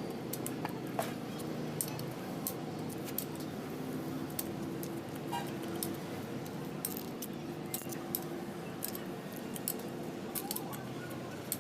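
Irregular light metallic clicks and clinks of tools and parts being handled during a truck differential rebuild, over a steady low hum.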